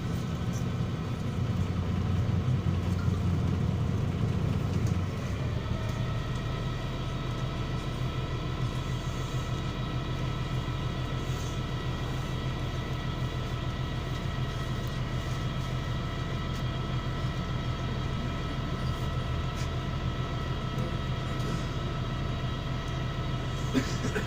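MAZ-103 city bus running, heard from inside: steady engine and road rumble, with a steady high whine setting in about six seconds in. A sharp click near the end.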